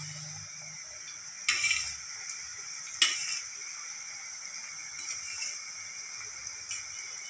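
Oil sizzling steadily as a batch of dough chips deep-fries in a pan. Sharp scrapes and clinks of a metal knife against a steel perforated ladle sound about one and a half and three seconds in, with fainter ones later.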